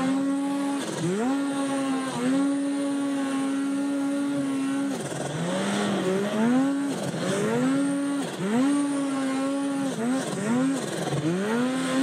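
Polaris Axys Pro RMK 800 snowmobile's two-stroke engine being throttled hard through deep powder: the revs climb quickly, hold, then drop off, again and again every second or two, with one longer held pull a few seconds in.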